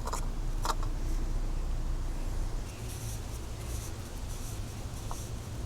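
Faint rubbing and scratching with a few light clicks from hands working the old rubber O-rings off the oil filter housing cap, over a steady low hum.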